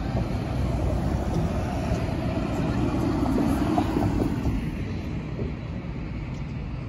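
Road traffic: a passing vehicle's engine and tyre noise swells to a peak about three and a half seconds in, then fades.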